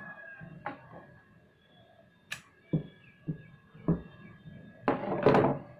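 Large steel tailoring shears cutting cotton cloth on a tabletop: a few short sharp snips and clicks of the blades. Near the end comes a longer, louder rustle as the cloth is shifted on the table.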